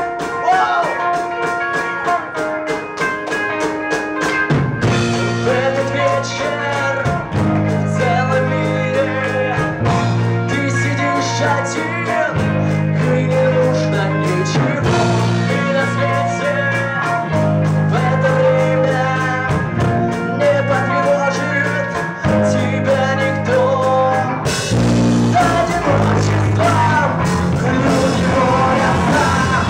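Rock band playing live, with singing: a sparse opening, then bass and drums come in about five seconds in, and the drums and cymbals get fuller near the end.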